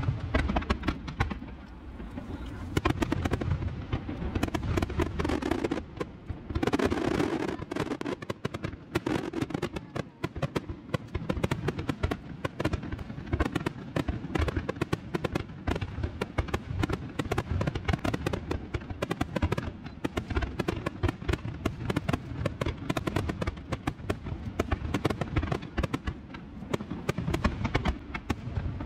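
Fireworks display: a continuous, rapid barrage of bursting shells and crackling.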